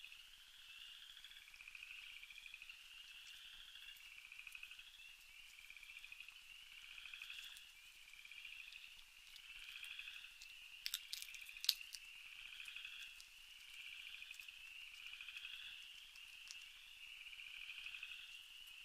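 Faint night chorus of pulsed, trilling animal calls, overlapping and repeating about once a second. A few sharp clicks come about eleven seconds in.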